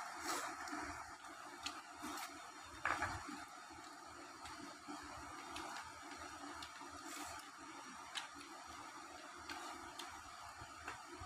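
Quiet room tone with a few soft scattered clicks and taps, the loudest about three seconds in, from fingers mixing rice and curry on plates.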